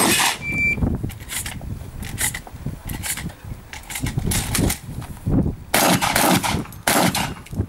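Competition shotgun fire: about ten shots at uneven spacing, some in quick pairs, thickest about six seconds in, each followed by a short echo.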